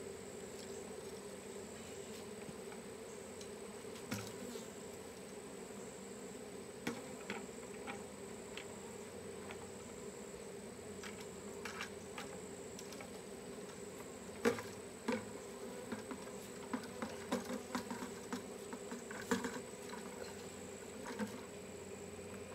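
A honeybee swarm buzzing steadily. Scattered sharp clicks and knocks sound over it, most of them in the second half.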